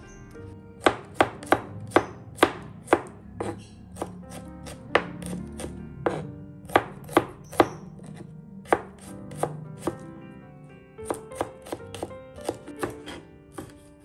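Knife chopping on a cutting board in uneven runs of sharp strokes, about two or three a second, with short pauses between runs.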